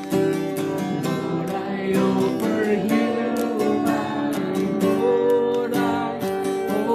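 Music led by strummed acoustic guitar.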